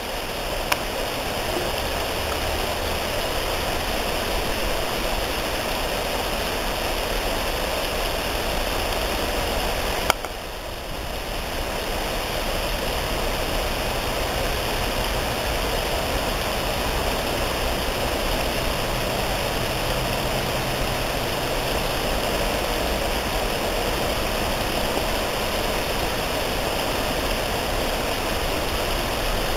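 Steady rushing background noise with a low hum underneath, broken by a single sharp click about ten seconds in.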